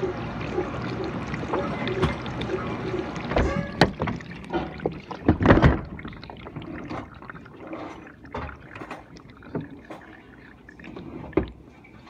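GE dishwasher running mid-cycle: water sloshing and splashing inside the tub. It is steady at first, has a few sharp, loud splashes around the middle, and is quieter in the second half.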